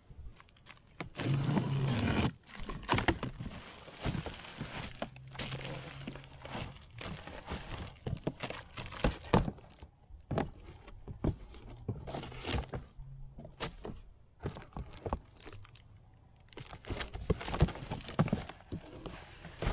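A cardboard shipping carton being opened with a utility knife and handled: slicing and scraping at the tape and cardboard, then a run of knocks, scrapes and rustles as the box is shifted and its flaps are pulled open. The loudest stretch of scraping comes about a second in.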